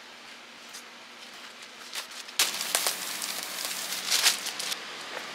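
Packaging being handled and unwrapped: quiet rustling at first, then louder crinkling and crackling with several sharp crackles from about two and a half seconds in, easing off near the end.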